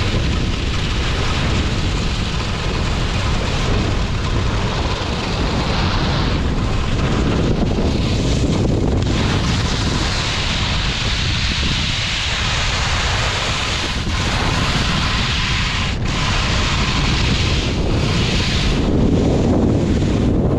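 Wind buffeting a pole-mounted action camera's microphone at skiing speed, with the hiss of skis carving across groomed snow swelling and fading with the turns.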